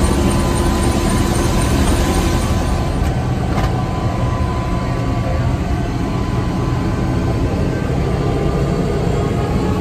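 Helicopter engine and rotor noise heard from inside the cabin: a steady, loud rumble with a thin, steady whine over it.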